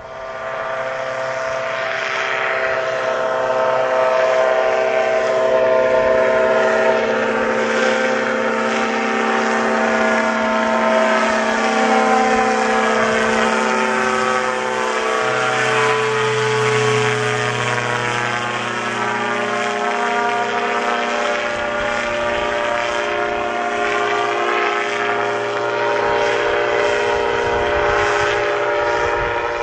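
Powered parachute's engine and pusher propeller droning in flight, a steady pitched hum that swells over the first few seconds and holds as the craft passes overhead.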